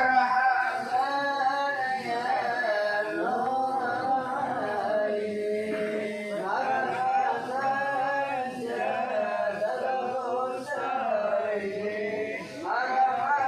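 Male voice chanting an Islamic devotional song (sholawat), with long, wavering held notes.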